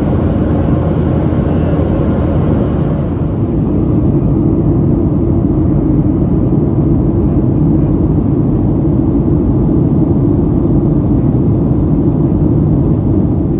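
Steady, low cabin rumble of a Boeing 737 in flight, from the engines and the airflow over the fuselage as heard at a window seat. The hiss thins slightly about four seconds in.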